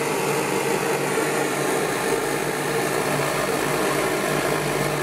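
Pre-war Hähnel No. 43 pressurised gasoline blowtorch burning with a steady hiss, its flame heating a soldering iron's copper block.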